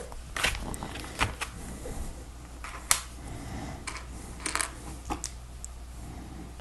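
Small plastic Lego pieces clicking and knocking as they are handled and pressed together, in irregular separate clicks, the sharpest about three seconds in.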